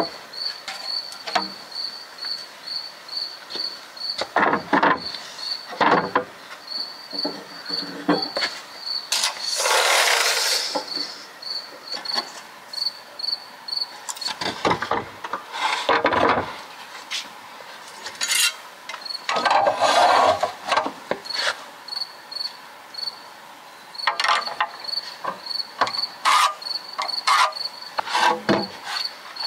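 A cricket chirping steadily, about three high chirps a second, over irregular knocks and clatter of wooden pieces being handled during building work. Two longer rasping scrapes, each about a second long, come about a third and about two thirds of the way through.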